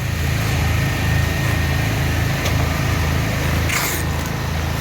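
A small engine running steadily with an even pulsing beat, with a faint steady whine above it and a brief hiss near the end.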